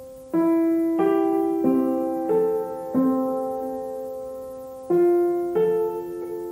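Background piano music: a slow, gentle melody of struck notes and chords, each left to ring and fade, with one longer held chord in the middle.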